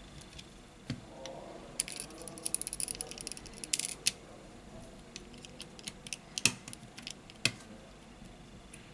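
Small clicks and scraping of a plastic spudger and fingertips working on a smartphone's lower sub-board and its flex connectors, with a run of quick fine ticks about two seconds in and a few sharper single clicks later.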